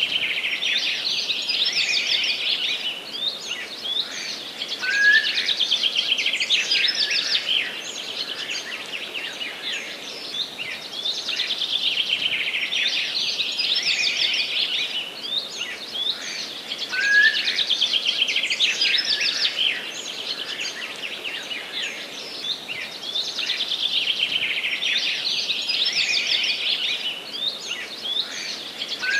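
Songbirds singing in a forest: fast, trilled song phrases about every six seconds, with a short rising call note every twelve seconds or so.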